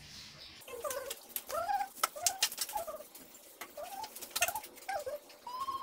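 A small animal's short, high calls, about a dozen in quick succession, each bending up and down in pitch, with scattered light clicks among them.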